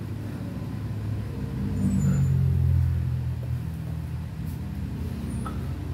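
Low engine-like rumble, swelling for about a second and a half from two seconds in and then settling back.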